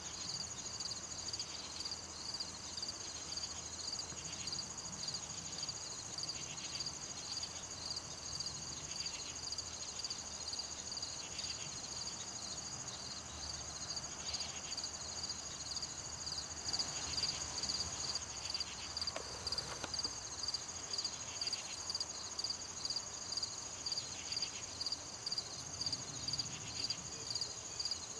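An outdoor insect chorus: crickets chirping in a steady, regular rhythm over a continuous high-pitched trill, with a second insect calling in slower pulsed phrases every couple of seconds.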